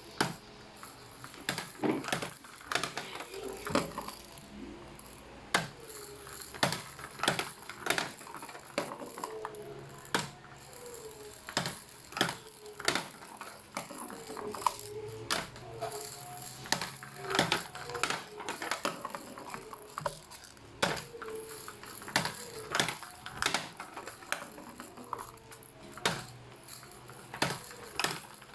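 Plastic balls rolling down an infant ball-drop toy's ramps, with a wavering rolling hum and irregular clicks and knocks as they drop and hit the plastic track.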